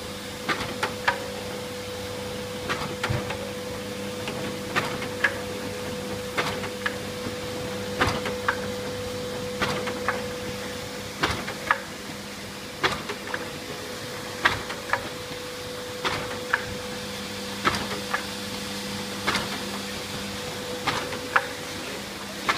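Foliant Vega 400A automatic laminator running: a steady machine hum with a sharp double click repeating about every second and a half.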